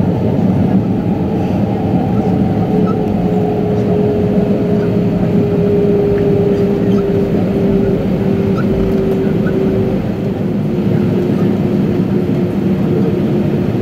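Airbus A319 cabin noise while taxiing after landing: the engines run at idle with a steady low drone, under a steady hum that slowly drifts slightly lower in pitch.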